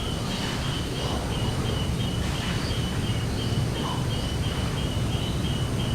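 Outdoor ambience: a steady low hum, with a short high chirp repeated about three times a second throughout and a few fainter bird calls over it.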